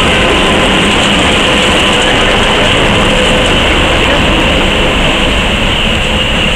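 Narrow-gauge NDM-1 diesel locomotive and its train running past at close range, a steady loud engine and wheel-on-rail noise.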